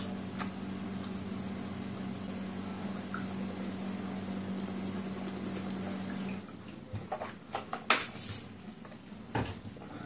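A steady low hum with a few faint clicks, which stops about six seconds in. Then comes drinking from a plastic bottle: a cluster of gulps and sharp knocks of the bottle, the loudest about eight seconds in.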